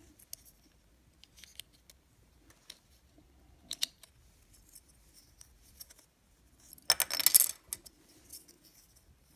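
Small parts of an N scale model locomotive handled between the fingers: the split metal frame with its contact strips and a plastic fuel tank giving scattered light clicks and taps, with a brief burst of rattling clicks about seven seconds in.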